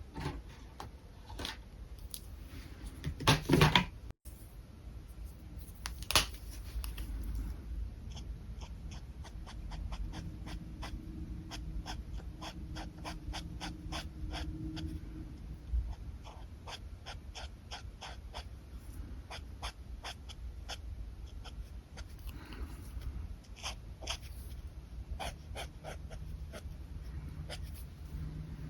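Alcohol marker nib stroking across paper in quick, short, repeated strokes, in a steady rhythm through most of the stretch. A short loud sound stands out about three seconds in.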